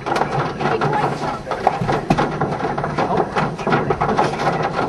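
Hailstones and rain hitting a car, a dense irregular clatter of many small impacts, with faint voices underneath.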